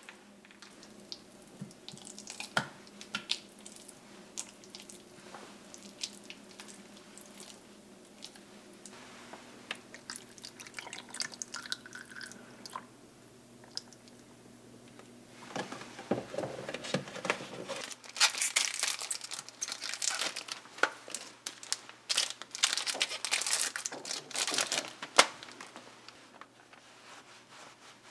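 Water from a tap running into a kitchen sink, with small clinks and knocks of things being handled. Scattered light clicks come first; the water and clatter are loudest in the second half and stop a few seconds before the end.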